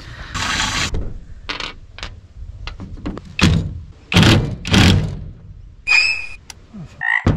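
Cordless drill with a hex (Allen key) bit driving a bolt into a stainless steel hinge in short bursts, with clunks as the bit bites, and a brief whine about six seconds in.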